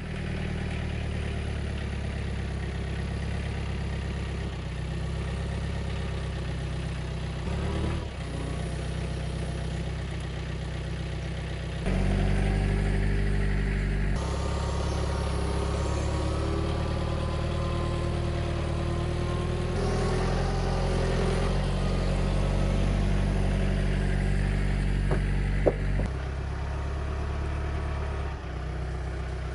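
A large engine running steadily at a low, even pitch. It gets louder about twelve seconds in, and two sharp knocks come near the end.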